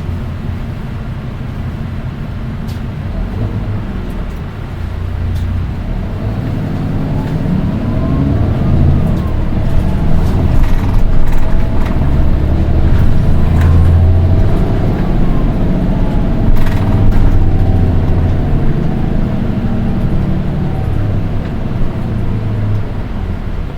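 Nissan Diesel Space Runner RM820 bus engine heard from inside the cabin, pulling away and speeding up, its pitch rising and falling through the gears. A shrill, high-pitched whine rides on top of the engine note. That shrill engine sound is peculiar to this one bus among its fleet's four RM820s.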